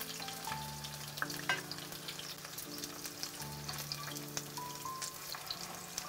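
Meat cutlets sizzling and crackling in shallow oil in a stainless-steel frying pan, with a few sharp clicks of the metal spatula against the pan as they are turned. Soft background music with long held notes plays underneath.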